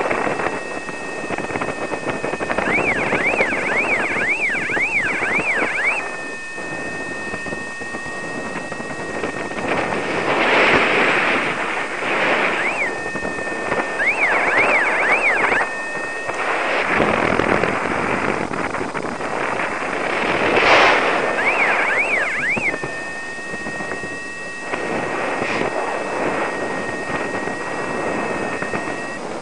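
Wind rushing over the microphone in gusts in flight under a paraglider, loudest about ten and twenty seconds in. Under it runs a high, steady electronic tone that now and then warbles quickly up and down.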